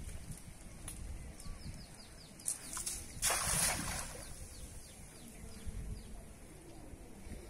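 A cast net landing on pond water: a short, spread-out hissing splash about three seconds in as the weighted edge of the net strikes the surface all at once. Short bird chirps are heard just before it, over a low outdoor rumble.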